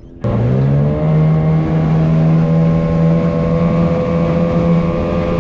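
Outboard motor on a small aluminium tinny running under power. It rises in pitch over the first second, then holds a steady drone over the hiss of water and wind.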